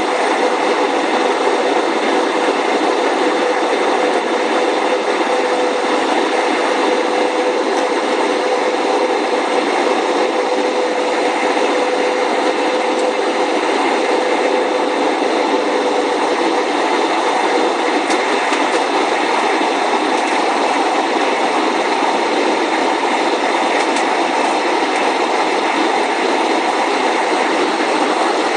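Steady roar of a jet airliner's engines and rushing air heard inside the passenger cabin during the descent, with a steady hum that fades a little after the middle.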